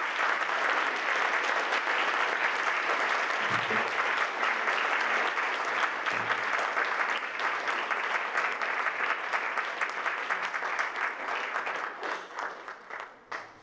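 Audience applauding: dense, steady clapping that thins to a few scattered claps near the end.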